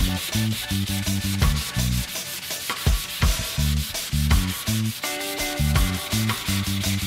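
Hand sanding of a bare wooden guitar neck, a steady rubbing, under background music with a stepping bass line and a quick steady beat.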